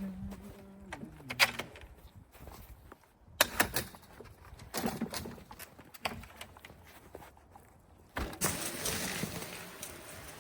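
Scattered knocks and clatters, then from about eight seconds in a sudden stretch of rustling that slowly fades.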